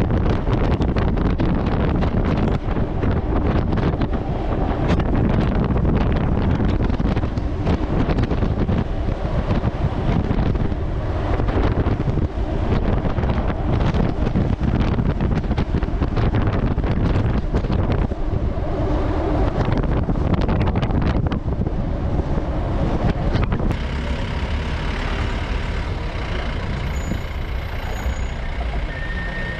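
Open-sided safari jeep driving along a paved road: engine and tyre noise under heavy wind rush and buffeting on the side-mounted camera's microphone. About three-quarters of the way through the jeep slows and the wind noise drops away, leaving a softer engine running.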